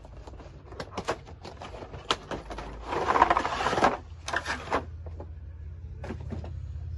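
Unboxing a toy gun by hand: scattered clicks and knocks of cardboard and plastic packaging being handled, with a dense rustling burst lasting about a second, about three seconds in.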